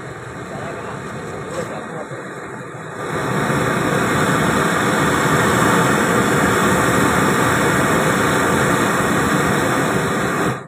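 Zeppelin 768 kompor mawar high-pressure gas burner running with a steady rushing flame. It grows louder about three seconds in and cuts off suddenly at the end.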